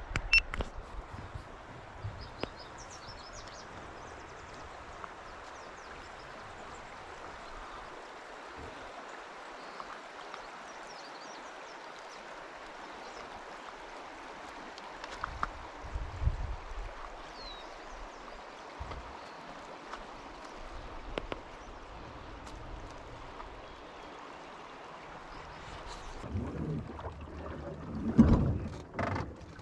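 Steady rush of flowing river water, with a few louder low thumps, the loudest cluster near the end.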